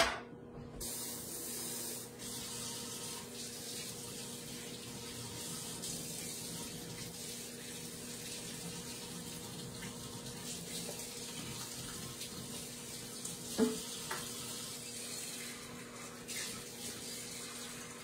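Kitchen tap running steadily into a bowl, filling it with hot water, starting about a second in. A short knock about three-quarters of the way through.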